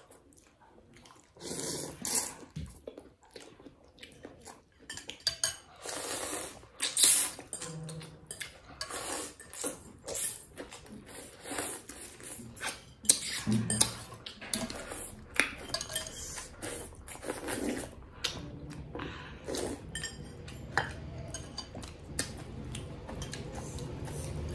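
Metal forks and spoons clinking and scraping against glass bowls of noodle soup during a meal, in short irregular clicks and knocks, with eating sounds in between.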